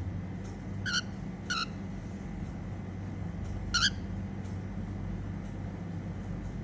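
Female cockatiel giving three short, sharp chirps, about a second, a second and a half, and nearly four seconds in, over a steady low hum.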